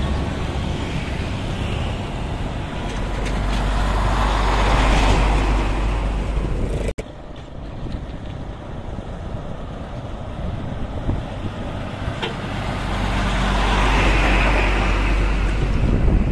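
Heavy diesel trucks and motorbikes passing close by as they climb a bridge incline, the engines' low rumble swelling as each vehicle nears. The sound breaks off abruptly about seven seconds in, then another truck approaches and passes.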